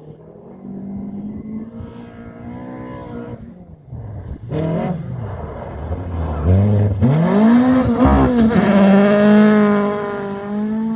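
Rally car engines revving hard, pitch climbing through the gears and dropping at each shift. The loudest part is a close pass about seven to ten seconds in, with a hiss of tyres on gravel.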